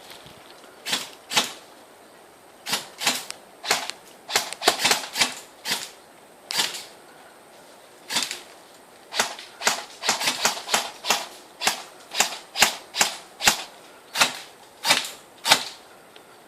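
Airsoft guns firing: a long run of sharp cracks at irregular spacing, some single shots and some in quick clusters, with a short lull midway.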